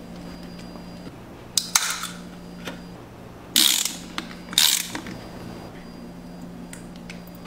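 Tools being worked on a plastic soda bottle and on food: a pipe wrench turning the bottle's cap, then a caulking gun squeezing out ketchup. Three short hisses and a few clicks sound over a faint steady hum.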